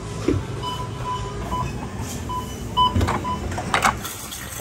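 Supermarket checkout beeping: a run of short electronic beeps, several a second, with a few knocks and clunks, the loudest about three and four seconds in.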